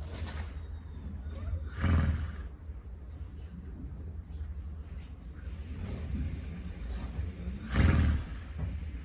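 A sleeping horse snoring: two loud, rough breaths about six seconds apart, the first about two seconds in and the second near the end, with fainter breaths between. Crickets chirp steadily behind.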